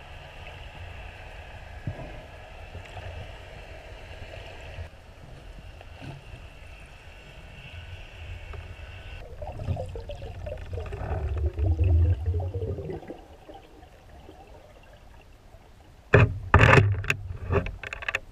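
Underwater sound through a GoPro camera's waterproof housing: a steady low rumble with a faint high whine, a louder gurgling swell of moving water about ten seconds in, then a quick cluster of sharp knocks near the end.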